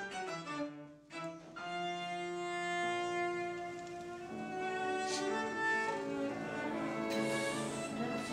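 Background music on bowed strings: a run of short notes, a brief break about a second in, then long held notes.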